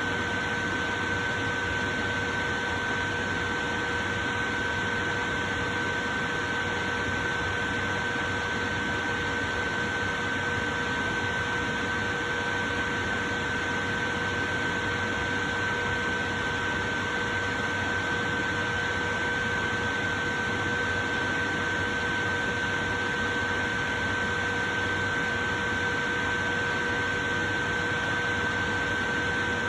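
Portable electric fan running steadily: an even rush of air with a constant motor whine.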